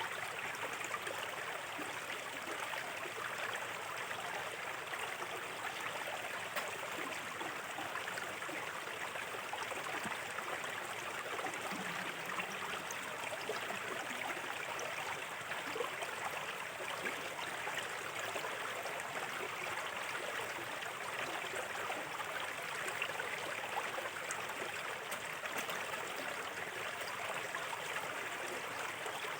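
Small river flowing steadily, a continuous babble of water with fine splashes throughout.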